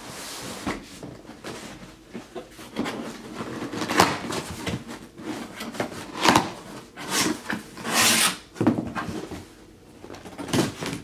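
Cardboard box being opened by hand: flaps scraping and creaking against each other, with rustling of a paper liner being pulled out. It comes in a series of uneven scrapes and rustles, the loudest sharp ones about four, six and eight seconds in.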